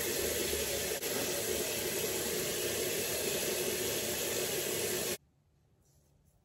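Bathroom tap running steadily into a sink, a rushing hiss of water that stops abruptly about five seconds in.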